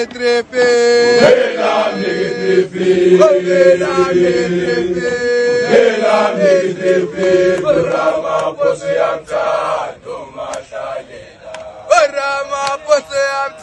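Group of schoolboys singing a gwijo, a Xhosa group chant, in full voice with several parts in harmony and long held notes. A new phrase begins with sharp, clipped vocal attacks near the end.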